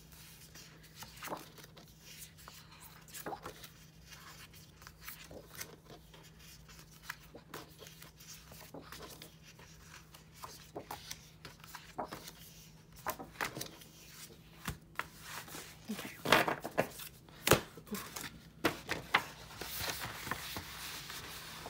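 Glossy photo prints and paper sheets being handled and flipped on a wooden desk: irregular rustling, paper slaps and light scrapes, with a burst of louder slaps and taps about sixteen seconds in and a longer sliding rustle near the end.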